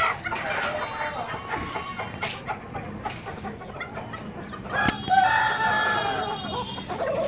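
Chickens clucking among a flock of fancy breeds and roosters, with one rooster crowing loudly about five seconds in.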